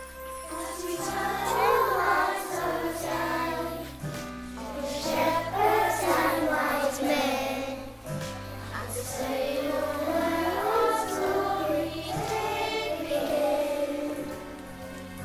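Young children singing together as a choir over instrumental accompaniment, a nativity song.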